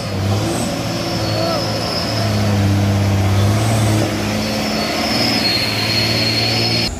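Diesel engine of a heavily loaded Hino 260 JD six-wheel dump truck running hard as it climbs through mud. Its steady note dips briefly about four seconds in, with a high whine coming and going over it, and it cuts off abruptly near the end.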